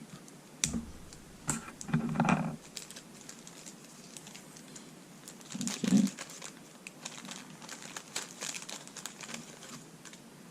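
Hands opening and handling a small plastic packet of kit parts: irregular crinkling and clicking of the packaging, with a few louder knocks and rustles about two seconds in and again about six seconds in.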